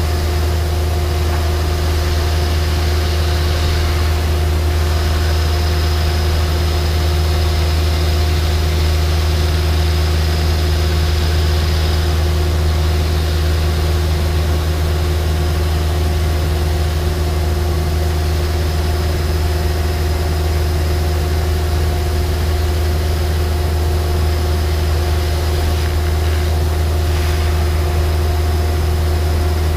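ESCO PM III 1530 abrasive fast-wire CNC profile saw running as its wire cuts a dense polyisocyanurate foam block: a steady low machine hum with a couple of constant higher tones above it, unchanging throughout.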